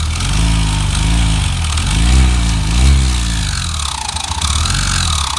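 Yamaha XTZ 125 single-cylinder engine turned over through its crankshaft by a rigged tool, its speed surging up and down repeatedly and easing off about four seconds in. It is being run this way to trace a very loud noise that taking apart the head and cam bearings had not explained.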